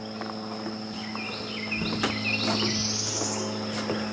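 Steady high-pitched insect chorus, with a few short bird chirps in the middle and a rising buzzing call about two and a half to three seconds in. A low steady hum runs underneath.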